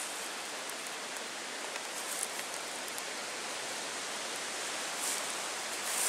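Steady, even hiss of outdoor forest ambience, with a few brief faint crackles about five seconds in.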